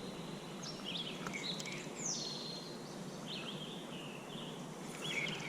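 Birds chirping, a series of short calls at intervals, over a steady hiss of running river water.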